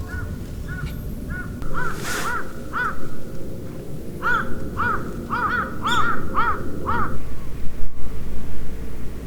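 A crow cawing over and over in short, repeated caws. The caws get louder and come faster about four seconds in, then stop about seven seconds in.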